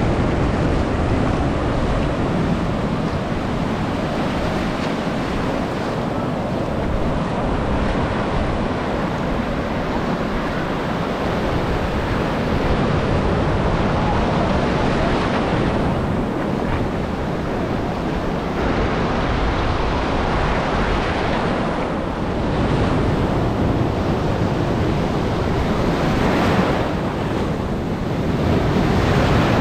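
Ocean surf breaking and washing up a beach, its rush swelling and easing every few seconds, with wind buffeting the microphone.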